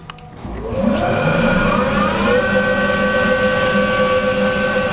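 Ingersoll Rand 15 HP UNIGY rotary screw air compressor starting up. A click, then its three-phase electric motor and screw spin up with a rising whine over about two seconds and settle into steady running as it builds pressure against a closed outlet valve.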